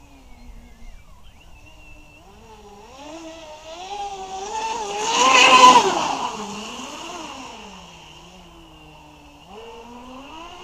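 Electric RC speedboat (Bandit S with a Leo LC 500/1720 brushless outrunner motor on 6S) running at speed: a motor-and-propeller whine that wavers in pitch. It swells to its loudest about five seconds in, with a hiss of spray as the boat passes close, then fades and comes back more faintly near the end.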